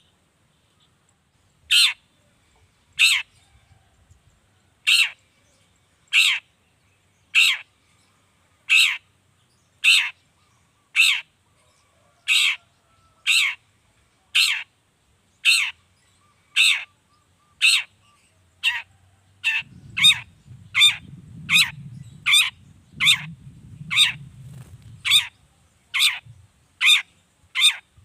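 Long-tailed shrike (cendet) giving a long series of short, harsh calls, each sweeping down in pitch. The calls come about one a second at first and quicken to about two a second past the middle. A low rumble sits underneath for a few seconds around then.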